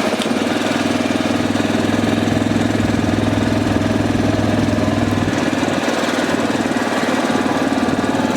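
Vehicle engine running steadily at raised speed.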